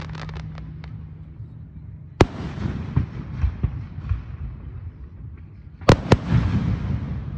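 Aerial firework shells bursting: a scatter of faint crackles at first, then a sharp bang about two seconds in and two more in quick succession near the end.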